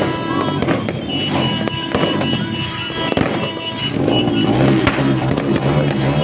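Fireworks popping and crackling in quick, irregular succession, with music playing underneath that becomes more prominent in the last couple of seconds.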